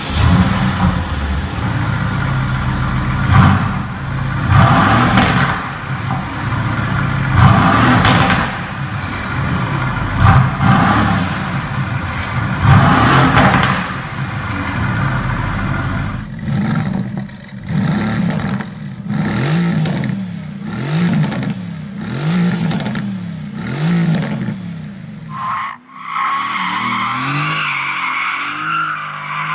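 Mercedes-AMG GT S's 4.0-litre twin-turbo V8 revved hard from standstill in several long bursts with sharp cracks from the exhaust, then a quick run of short rev blips about once a second. Near the end the sound changes to a car driven on a track, with a higher, steadier tone.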